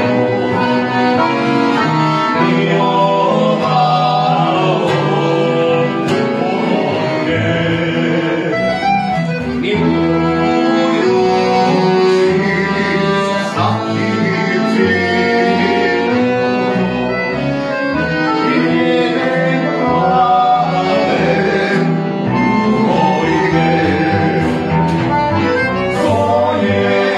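Live folk band playing: two accordions carrying the tune over a bowed kontra (three-string viola) and bass.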